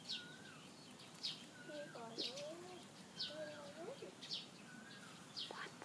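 Small birds calling: short high chirps about once a second, with softer whistled notes that rise and fall between them.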